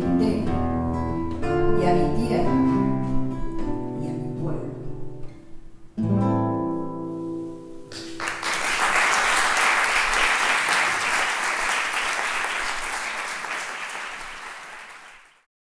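The final bars of a milonga on nylon-string classical guitar and transverse flute, ending on a chord about six seconds in that rings out. An audience then applauds, and the applause fades away near the end.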